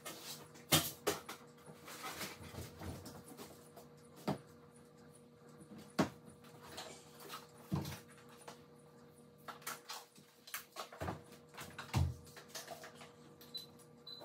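Irregular knocks, clunks and rustling of laundry being handled at a top-loading washing machine, the loudest knocks about a second in, at about six and eight seconds, and near twelve seconds. A faint steady hum runs underneath.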